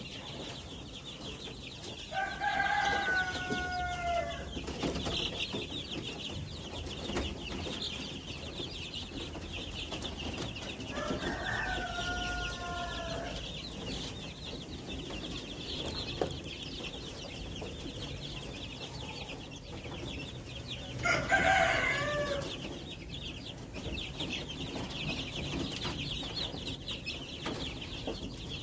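Two-week-old KUB chicks peeping constantly, a dense high chorus of cheeps. Three louder, drawn-out chicken calls cut through it, about ten seconds apart.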